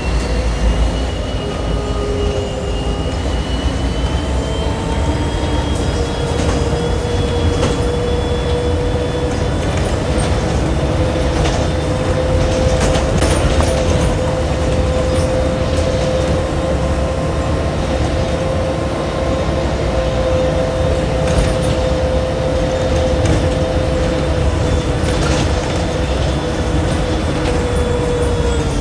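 Mercedes-Benz O-500UA articulated bus running under way: a steady deep drone with a whine that rises slowly in pitch and then holds, and scattered clicks and rattles.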